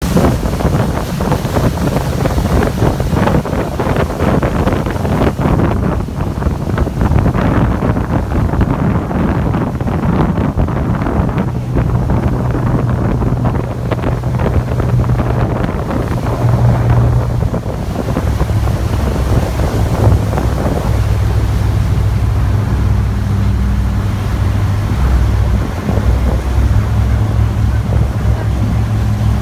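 Boat engine running with a steady low hum, under heavy wind buffeting on the microphone; the wind noise is strongest in the first half, and the engine hum stands out more clearly from about eleven seconds in.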